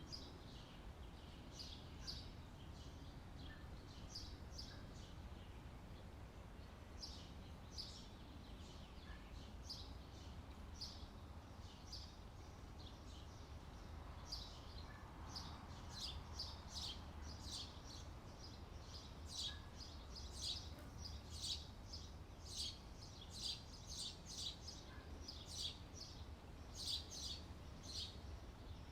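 Small birds chirping in short, repeated high calls, sparse at first and coming more often in the second half, over a steady low background noise.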